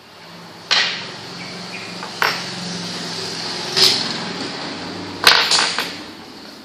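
Sharp knocks from moves played at a makruk (Thai chess) board, five in all, the last two in quick succession.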